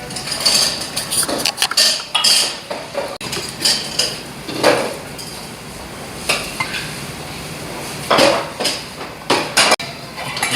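Cutlery clinking and scraping against plates and bowls in short, irregular knocks while a braised pollock dish is being served and eaten.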